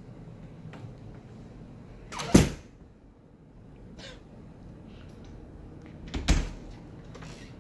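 Two short, sudden thumps about four seconds apart, the first the louder, over a low steady room hum with a few faint clicks.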